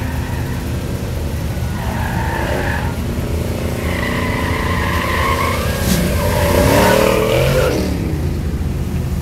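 Muscle car lapping an autocross cone course, its engine revving hard with tyre squeal through the turns. It is loudest about seven seconds in, as it passes close and the engine note rises, then falls away.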